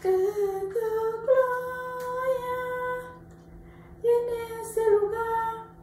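A woman singing unaccompanied in long held notes: one phrase of about three seconds, then after a short pause a second, shorter phrase.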